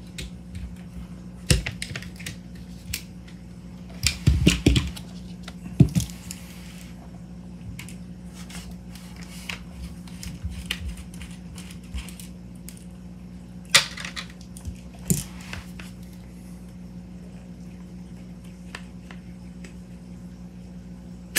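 Scattered clicks, knocks and scrapes of metal air-rifle parts and a small screwdriver being handled while the air bottle is unscrewed from an AEA HP SS air rifle, over a steady low hum.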